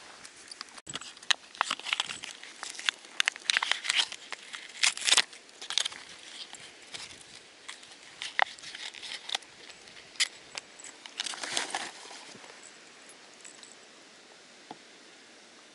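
Close handling noise of fishing tackle being worked on: an irregular run of crinkling, rustling and sharp clicks that dies away after about twelve seconds.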